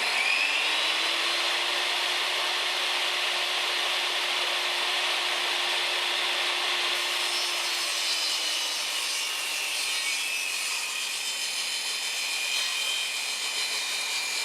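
Electric saw with its blade tilted to a 30-degree bevel running steadily through a wooden board, cutting a long angled rip for a wedge.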